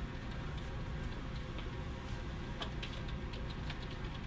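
Computer keyboard being typed on: a few scattered, irregular key clicks over a steady low hum.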